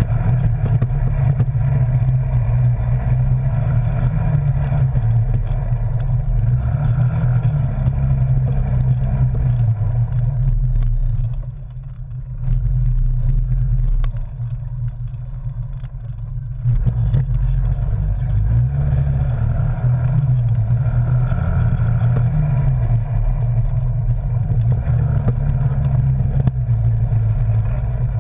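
Arctic Cat Wildcat Sport side-by-side's 700cc twin-cylinder engine running under way, the engine note rising and falling with the throttle over rough trail. The engine drops lower and quieter for a few seconds near the middle as the driver eases off, then picks up again.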